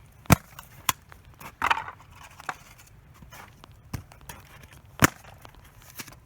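Hand tool striking detached ceiling fan blades with about six sharp, uneven blows. The loudest hits come about a third of a second in and about five seconds in.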